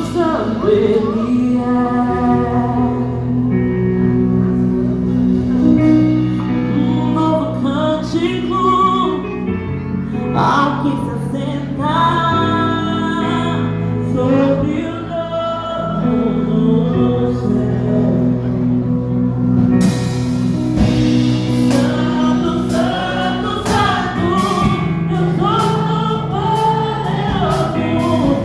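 Gospel worship music: voices singing together over sustained low instrumental notes, with a drum beat and cymbals coming in about twenty seconds in.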